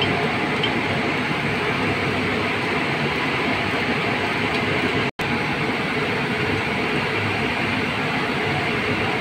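Steady, loud rail machinery noise, an even rushing hum with no distinct strokes or rhythm. It cuts out completely for an instant about five seconds in.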